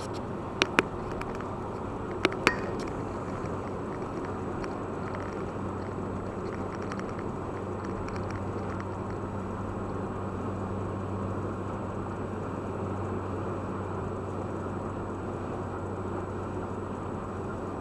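Steady drone of a car's tyre and engine noise heard inside the cabin while cruising at about 100 km/h, with two pairs of sharp clicks in the first three seconds.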